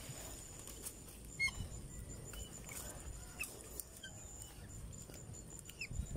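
Faint outdoor background with a steady high insect drone, light rustling clicks and a few short high chirps or squeaks.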